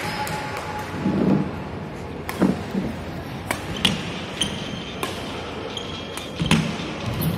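Badminton rally on a wooden court: rackets strike the shuttlecock with sharp cracks several times, mixed with heavy thuds of players' feet landing, the loudest as a jump smash comes down.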